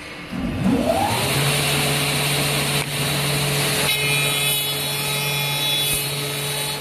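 CNC solid-wood tenoning machine starting a tenon cycle: a rising whine about half a second in as its motor spins up, then steady running with a low hum and a dense hiss. A higher whine joins around the middle.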